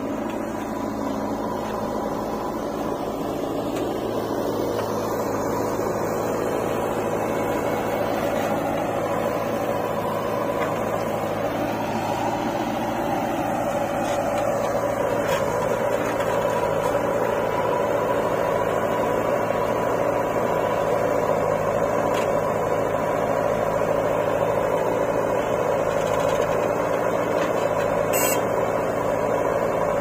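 Diesel engines of a John Deere tractor pulling a loaded trolley and a JCB 3DX backhoe loader running steadily. The engine note rises a little in pitch about halfway through, and the sound grows gradually louder.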